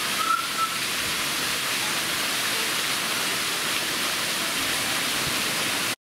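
Routin Linn waterfall: water falling down a rock face into a pool, a steady rushing splash.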